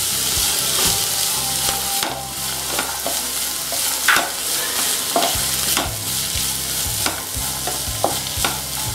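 Diced onion, carrot and green beans sizzling in hot oil in a frying pan while being stirred with a wooden spatula, which scrapes and knocks against the pan at irregular moments, roughly once a second.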